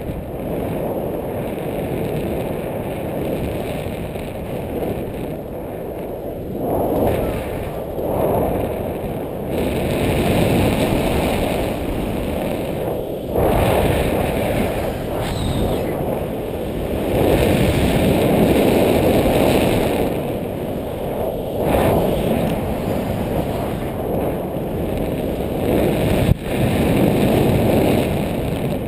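Wind rushing over a harness-mounted camera's microphone in paraglider flight, swelling and easing every few seconds as the wing swings through wingovers and spirals. A brief sharp knock near the end.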